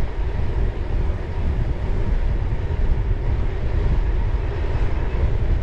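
Wind buffeting the microphone of a bike-mounted action camera while riding, a steady low rumble with road noise underneath.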